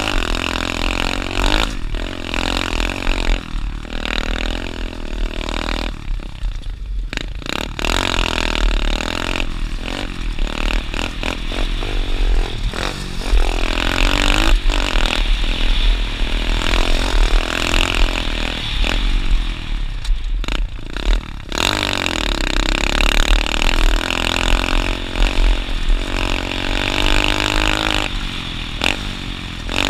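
Dirt bike engine running under riding load, revving up and down over and over as the throttle opens and closes, with a heavy low rumble underneath.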